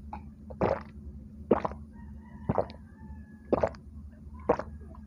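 A person gulping a cold drink from a glass, swallowing five times at about one gulp a second.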